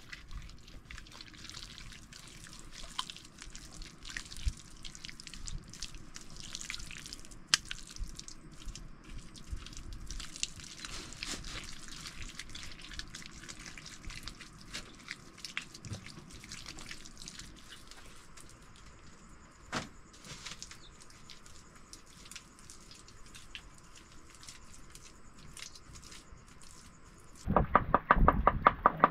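Water dripping and splashing, with scattered small clicks and knocks. Near the end a loud, rapid series of repeated strokes begins.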